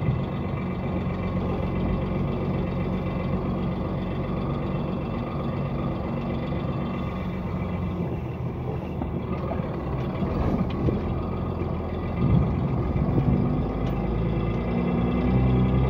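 Truck engine running steadily as the truck drives slowly, heard from inside the cab; its low note shifts over the last few seconds.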